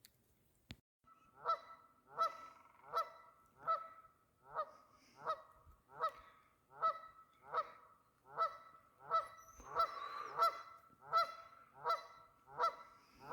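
A goose honking over and over in a steady rhythm, roughly one honk every three-quarters of a second, starting about a second in.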